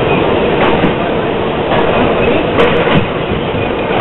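R38 subway car running at speed through a tunnel, heard from the front window: a loud, steady rumble of wheels on rail with a few sharp clicks over the rail joints.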